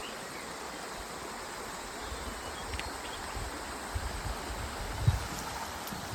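River stream flowing, a steady rush of water, with a few short low bumps about four and five seconds in.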